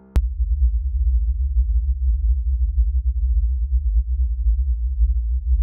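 Wind buffeting the microphone: a loud, deep rumble that wavers constantly in strength and starts abruptly.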